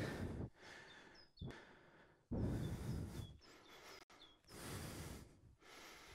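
A person breathing out heavily three times, about two seconds apart, winded after a core exercise, with a small bird chirping several times.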